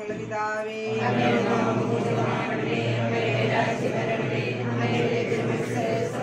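A group of men and women chanting a prayer together in unison, read from prayer books; the voices grow fuller about a second in.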